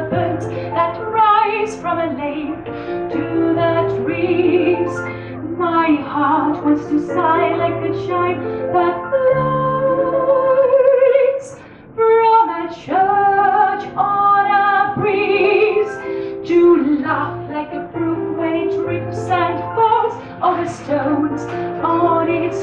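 Music with a female voice singing over instrumental accompaniment, holding one long note with vibrato partway through and briefly dropping away before picking up again.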